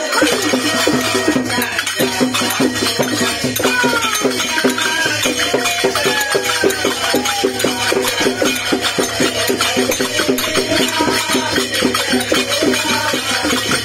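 Devotional group singing at a puja, with a hand drum and jingling hand percussion keeping a fast, steady beat under a lead voice on a microphone.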